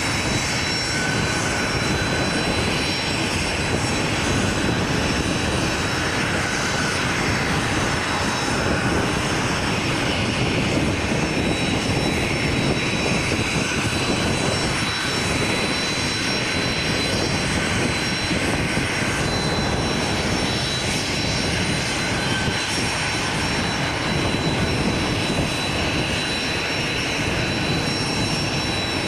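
Business jet's turbofan engines running steadily: an even rush with a steady high-pitched whine over it.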